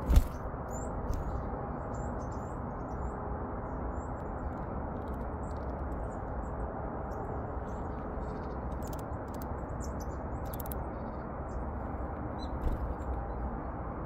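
Small birds, tits and a Eurasian nuthatch, give scattered short, high-pitched calls and ticks while they take seeds from a hand. Under them runs a steady low background noise, and a single thump sounds right at the start.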